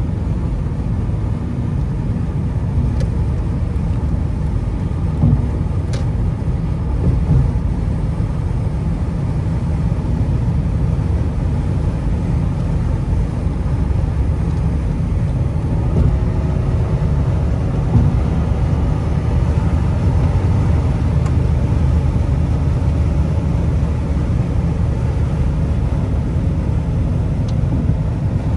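2004 Lexus LS430 with its 4.3-litre 3UZ-FE V8 driving on the road: a steady low rumble of engine and road noise, with a faint tone that drifts in pitch near the middle.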